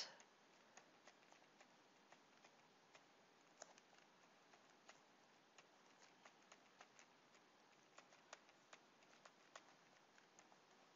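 Near silence with faint, irregular light ticks of a stylus tapping and writing on a tablet or pen display, over a low hiss.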